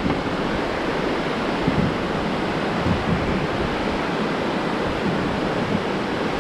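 Whitewater rapids of a river rushing steadily.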